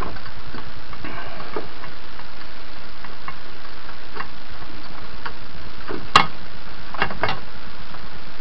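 Light scattered clicks and taps of a cable being pushed into a small drilled hole in a stainless steel tube, with a sharper click about six seconds in, over a steady hiss.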